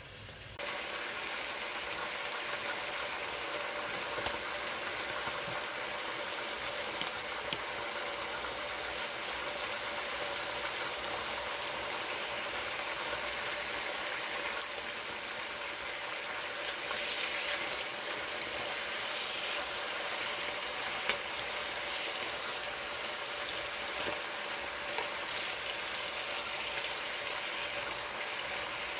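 Thin steaks frying in hot oil in a deep skillet: a steady sizzle and bubbling, with a few small clicks.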